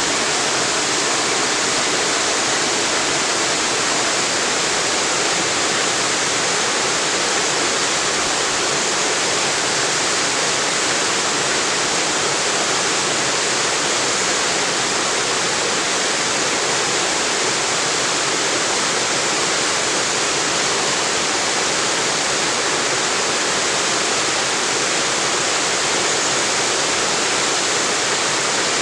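Small waterfall on a river: water pouring and splashing in a steady, unbroken rush.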